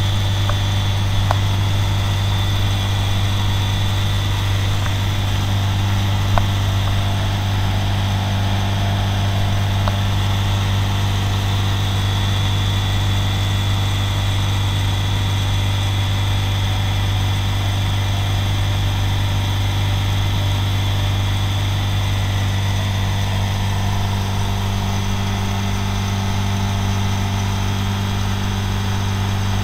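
Moragon M-1 light aircraft's piston engine and propeller running steadily at high power in the climb after takeoff, heard from inside the cockpit as a loud, even drone with a deep hum. A few light clicks come in the first ten seconds.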